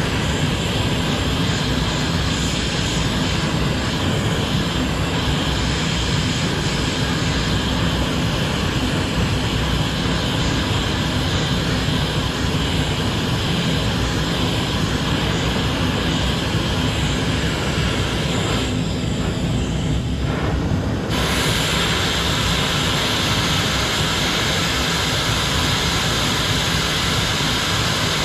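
Oxy-acetylene torch with a cutting tip hissing steadily while heating steel, over the steady roar of a torpedo heater running. About 19 s in the high hiss drops away for roughly two seconds, then returns.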